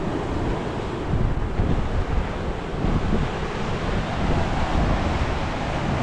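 Ocean surf breaking and washing over a rocky shore, with wind buffeting the microphone in an uneven low rumble.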